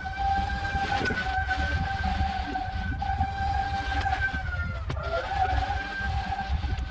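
Swardman Electra battery-powered cylinder mower running, a steady high electric whine over a low rumble. The whine sags briefly in pitch about five seconds in, then comes back up.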